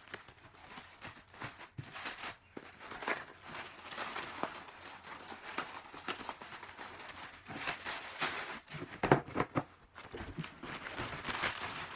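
Plastic packaging rustling and crinkling as items are handled and unwrapped, with irregular crisp clicks throughout and a cluster of sharper knocks about nine seconds in.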